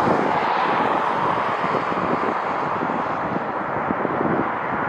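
Jet airliner engine noise, a steady loud rush whose higher hiss fades over the first couple of seconds, with wind buffeting the microphone.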